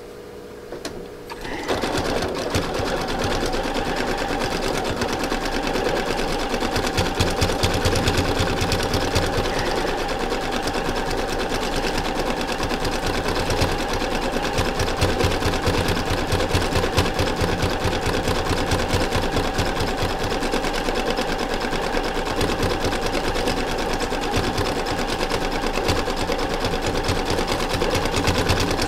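Sewing machine starting up about a second and a half in, then running steadily with a rapid stitching rattle as it sews a fabric-covered rope coil onto the side of a rope bowl.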